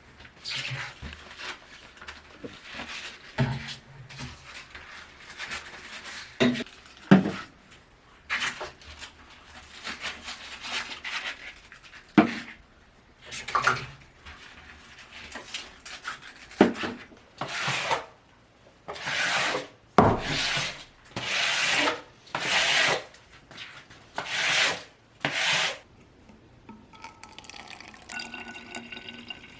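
Scrubbing: a brush or sponge rubbed against a surface in separate strokes, which grow louder and settle to about one a second in the second half before stopping.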